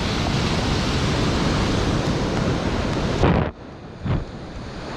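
Ocean surf and wind blowing on the microphone, a loud steady rush. About three and a half seconds in, a short knock is followed by the noise cutting out abruptly for over a second, with one brief bump, before it returns.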